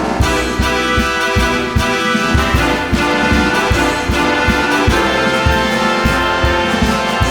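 Background music: a bright instrumental tune with brass-like lead and a steady beat.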